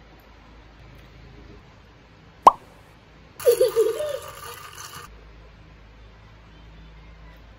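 A single short pop, then about two seconds of ice and a straw rattling and squeaking in a plastic cup as an iced drink is stirred.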